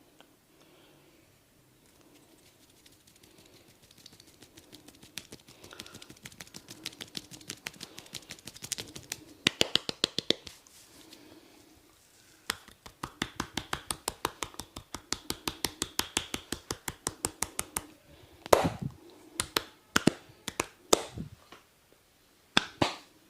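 Rapid rhythmic hand taps and slaps of a barber's head massage. The taps run quickly and build to their loudest about ten seconds in. After a short break they come as a steady run of about five or six a second, then give way to a few louder, separate sharp cracks near the end.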